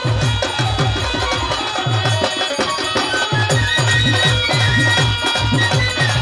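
Instrumental passage of live Bangladeshi Baul folk music. A double-headed barrel drum (dhol) beats a steady rhythm under a high sustained melody line.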